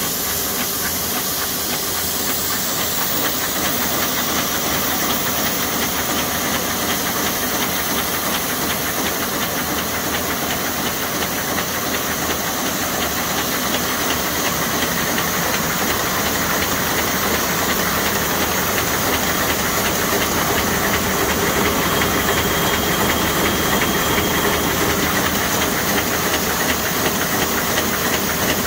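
Buhrs ITM BB700 envelope inserter running: a dense, steady mechanical clatter with an even hiss, growing slightly louder near the end.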